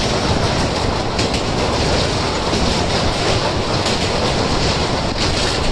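Passenger train crossing a riveted steel truss bridge at speed, heard from a coach window: a steady, loud running noise of wheels on rails.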